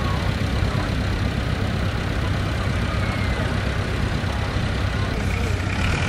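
Tractor engines running steadily, a low drone.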